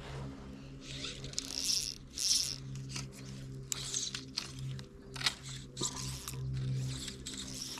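Fly line being pulled off a fly reel in a series of short zipping pulls, with a couple of sharp clicks after about five seconds, over a steady low hum.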